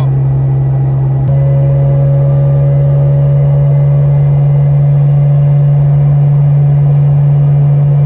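Nissan 350Z's 3.5-litre V6 droning at a steady cruise, heard inside the stripped-out cabin. The pitch holds constant, with one slight change about a second in.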